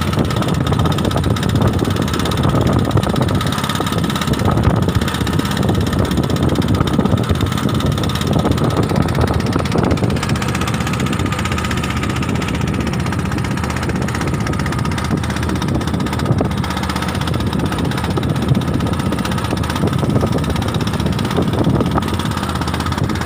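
Small boat's engine running steadily, with a constant tone over the low rumble.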